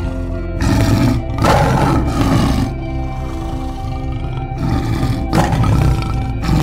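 Big-cat roar sound effects over steady background music: a long roar starting about half a second in, then shorter roars near the end.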